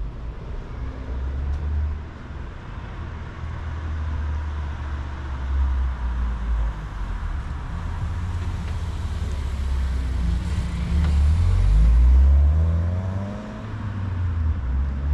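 Road traffic on a city street: a car drives past about halfway through over a steady low rumble. Then a vehicle accelerates, its engine pitch rising, and is loudest in the last third.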